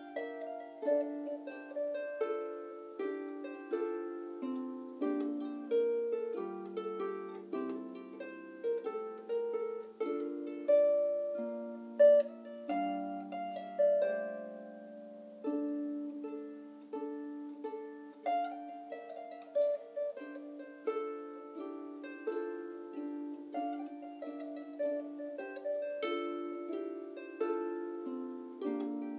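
A Marini lap harp played solo, its strings plucked by hand in a lively gigue. Each note starts sharply and rings away, with lower notes sounding under the tune.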